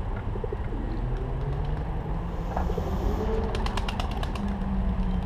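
A bird's wings flapping as it takes off: a quick run of about ten sharp claps between three and four seconds in, over a steady low hum.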